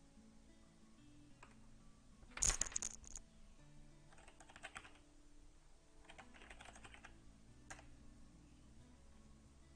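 Computer keyboard keystrokes in three short bursts of rapid clicks, the first burst the loudest, then a single keystroke near the end.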